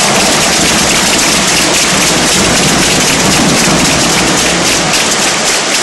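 Arena crowd applauding with loud, even clapping.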